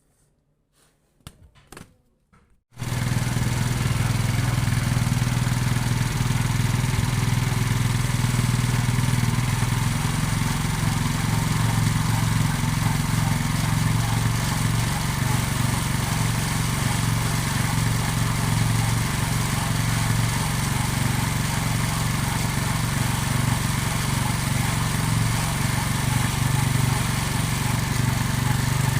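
A few faint clicks, then about three seconds in a Honda Shine motorcycle's single-cylinder engine is heard running steadily and loudly, with no change in speed.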